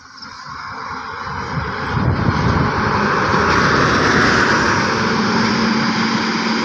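Diesel engine of a Daewoo coach bus, growing louder as it approaches and loudest as it passes close by about four seconds in. After that it holds a steady low engine drone as the bus pulls away up the bend.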